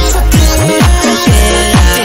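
Electronic dance music with a steady beat and a heavy bass whose notes slide down and up in pitch several times a second.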